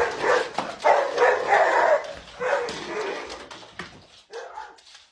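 A dog barking several times in loud, rough barks that grow fainter and sparser after about three seconds.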